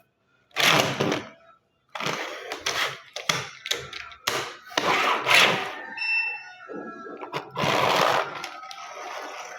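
Small plastic toy road roller with a spring-driven motor, its gears whirring and wheels rattling in a series of short uneven bursts as it is run along a surface.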